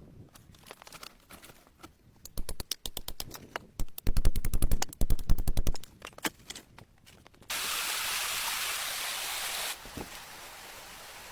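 A quick run of clicks or knocks, loudest for about two seconds in the middle. A steady rushing hiss then cuts in abruptly and drops to a quieter level a couple of seconds later.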